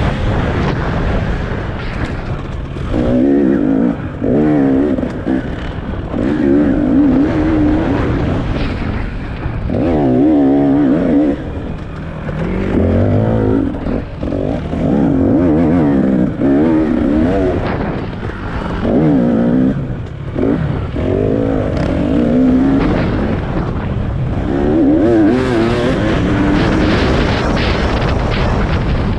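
A racing engine revving up and falling back over and over, every second or two, as if being driven hard on a track.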